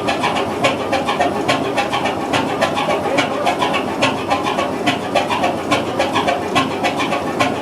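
Large Körting multi-cylinder stationary diesel engine with air-blast fuel injection, running steadily at low speed: a dense mechanical clatter with sharp regular clicks about three a second.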